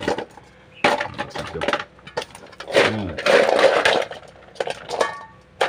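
Large blood cockle shells clattering against each other and the aluminium bowl as they are dropped and moved about by hand, in several bursts of sharp clicks, the loudest a little after the middle.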